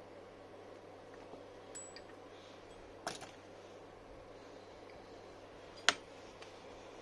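A few sharp clicks and clinks of hard objects being handled: a light one, then a double click near the middle, and a louder, sharper click about six seconds in. A steady low hum runs under them.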